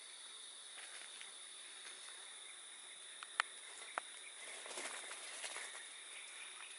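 Steady, high-pitched chorus of forest insects. Two sharp clicks come about three and a half and four seconds in, followed by a brief rustling patch around five seconds.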